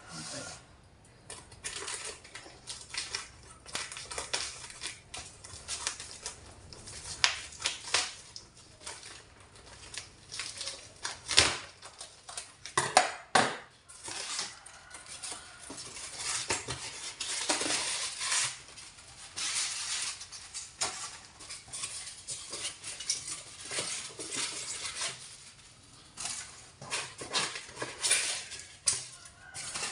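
Hands rustling and crinkling paper and plastic packing while pulling it out of a cardboard box, in irregular bursts, with a few louder sharp crackles about halfway through.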